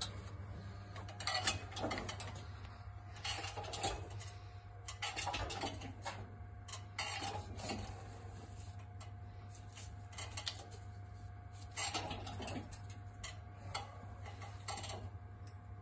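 Irregular metallic clinks and scrapes of hand and tools against the cast-iron engine block, over a steady low hum.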